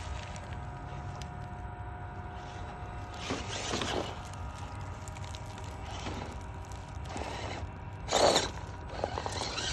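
Radio-controlled Jeep crawling over a dirt trail: a faint steady whine from its small electric motor and gears, with its tyres and body scraping and crunching over dirt and rocks, loudest about eight seconds in.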